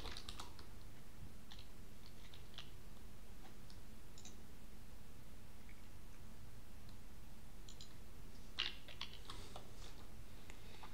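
Faint computer keyboard keystrokes and clicks over a low steady hiss: a scatter of single clicks in the first three seconds and a short quick cluster about nine seconds in.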